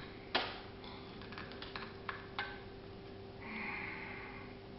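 Metal clicks and light knocks from handling an AR-15 upper receiver while an A2 birdcage flash hider is turned by hand on the barrel's muzzle threads to check how it lines up. The loudest click comes just after the start, smaller clicks follow over the next two seconds, and a brief scraping sound comes about three and a half seconds in.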